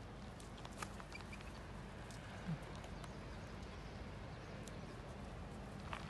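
Faint, steady outdoor background hiss with a few scattered light clicks, and a brief soft low thump about two and a half seconds in.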